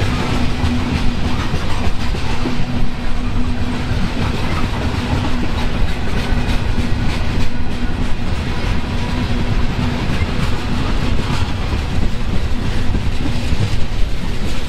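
Freight train rolling past, a steady loud rumble of steel wheels on the rails with repeated clicks over the rail joints.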